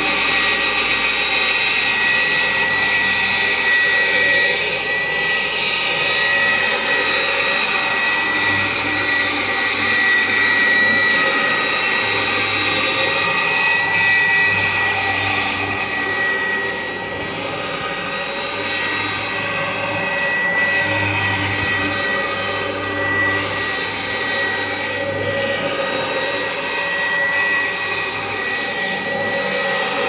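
Full-metal Kirby G4 upright vacuum cleaner with its aluminum fan running steadily as it is pushed over carpet: a steady motor drone with a high steady whine. It softens slightly about halfway through.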